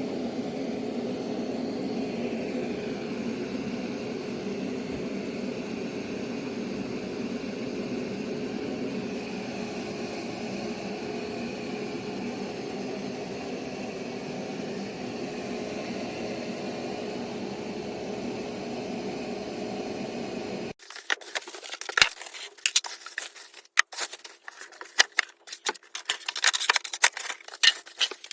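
Robot vacuum running with a steady motor hum. Near the end it cuts off abruptly to a rapid, irregular clatter of sharp clicks and rattles.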